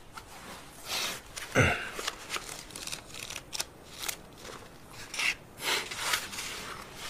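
Pages of a paper notebook being leafed through and handled: a string of short, uneven rustles and scrapes.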